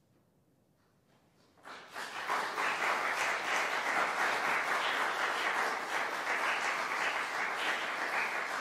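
Audience applause breaking out after about a second and a half of quiet, then many people clapping steadily.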